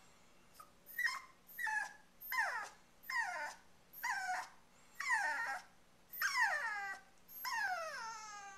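Pomeranian puppy whimpering: about eight short, high-pitched whines in a row, each falling in pitch, less than a second apart.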